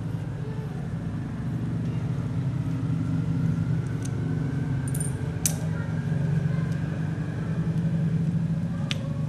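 A few sharp metallic clicks of a screwdriver against the aluminium carburetor and body of an OS 46AX model two-stroke engine while it is being taken apart. They come over a steady low background hum.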